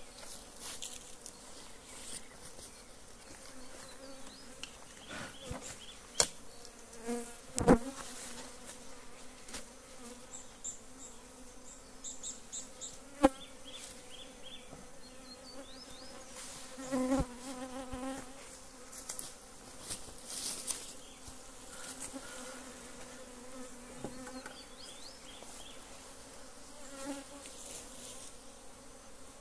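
Honeybees buzzing steadily around an open hive, a continuous droning hum, broken by a few sharp knocks as wooden hive boxes are handled.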